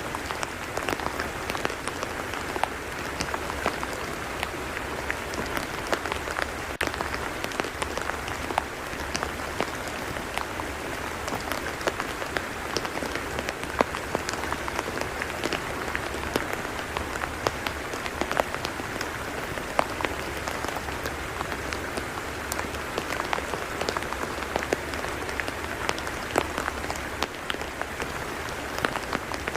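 Rain falling on a tidal mudflat: a steady patter thick with many small, sharp drop ticks.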